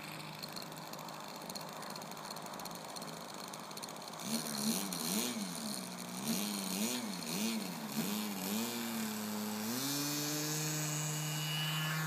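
Radio-controlled model aircraft's motor running in flight, faint at first. About four seconds in it grows louder, its pitch swinging up and down several times. About ten seconds in it settles into a steady, higher note.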